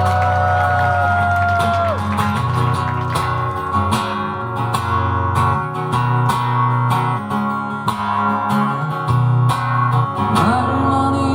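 Live band music in an instrumental break: guitar strumming over a steady beat, with a held note sliding at the start and a rising slide near the end.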